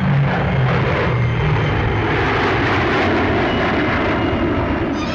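Gloster Meteor twin-jet fighters flying past overhead: a loud, steady rush of jet engine noise.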